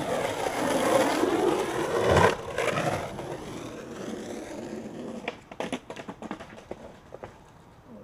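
Skateboard wheels rolling on rough asphalt, with a heavy knock about two seconds in. A string of sharp clacks and scrapes follows in the second half as the skater falls and the board hits the ground.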